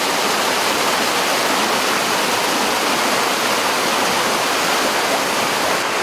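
Small waterfall spilling over a rock ledge and cascading down boulders: a steady, even rush of water.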